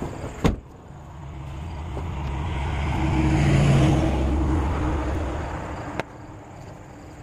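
A motor vehicle driving past, its engine rumble swelling to a peak mid-way and then fading away. A short knock sounds near the start and a faint click near the end.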